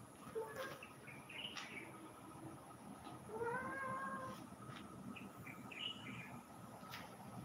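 A cat meowing once, one drawn-out meow of about a second a little before the middle, with a few short high chirps before and after it.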